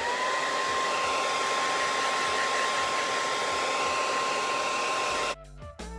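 Handheld hair dryer switched on, its motor whine rising to a steady pitch over a loud rush of air, blowing steadily to dry freshly applied wig glue. It cuts off suddenly about five seconds in, and music follows.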